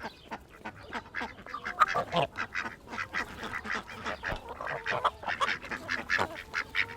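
Hens in a chicken coop clucking and squawking, many short overlapping calls.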